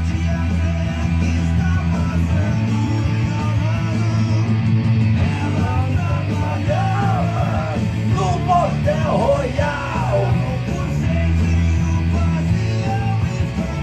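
A rock song playing, with a singing voice over guitars and a steady bass line.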